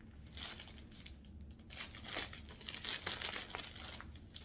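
Plastic packaging bag crinkling and rustling in several separate bursts as a folded garment is unwrapped from it.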